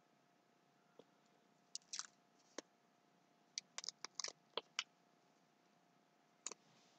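Faint, scattered crinkles and clicks of fingers picking and peeling the paper backing off a small adhesive tab: a few about two seconds in, a quick cluster from about three and a half to five seconds, and one more near the end.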